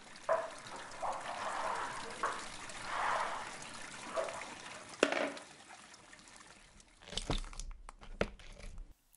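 Dry ice bubbling and fizzing in a cup of clear slime, gas popping through the gel in repeated soft bursts. In the last two seconds a plastic spoon stirs the slime, with a few sharp clicks and squishes.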